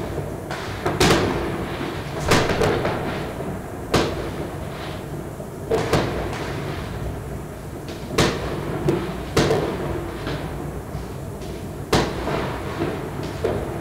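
Fireworks and firecrackers going off: about nine sharp bangs at irregular intervals, each trailing off in an echo, over a low background rumble.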